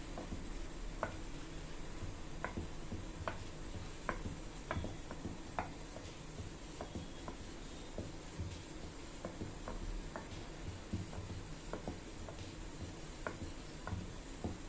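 Wooden rolling pin rolling wheat dough flat on a round wooden board: a soft rubbing with light, irregular knocks about once a second as the pin rolls back and forth.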